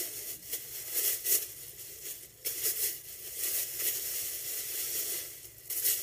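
Layers of soft gift wrapping being pulled off and crumpled by hand: rustling and crinkling in irregular bursts.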